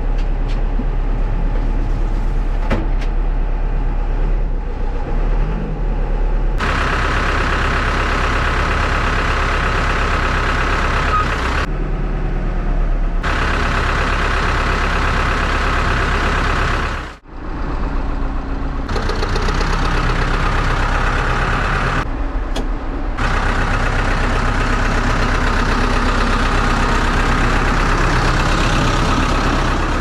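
HEPCO HLB95B backhoe loader's diesel engine running and working, its sound changing abruptly several times.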